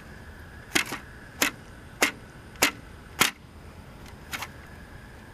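Sharp knocks, five in a row about every 0.6 s, then a fainter one. They are most likely a stick tapping to knock a June bug loose. A faint steady high tone hums underneath.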